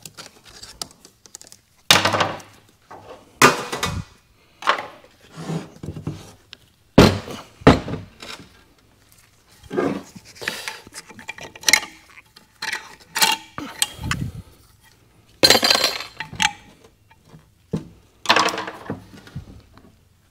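Steel transmission parts clinking and clanking as a clutch pack in the overdrive section of a 48RE automatic transmission is taken apart by hand. The sound is an irregular run of sharp metallic knocks with short ringing.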